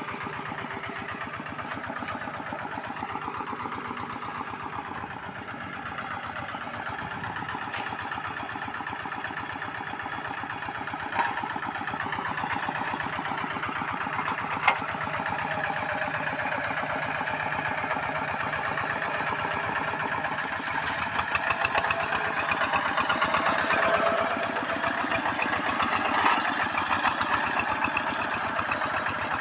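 Two-wheel hand tractor's engine running steadily under load while pulling a plough, with a short louder stretch about two-thirds of the way through.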